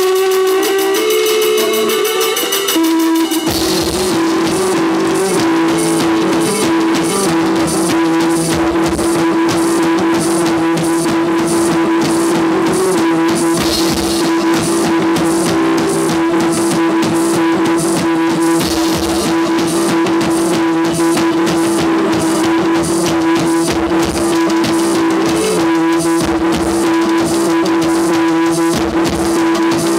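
Live rock band playing loudly. A held droning note runs under a melodic line, and drums (drum kit and hand drums) come in about three and a half seconds in with a fast, steady beat.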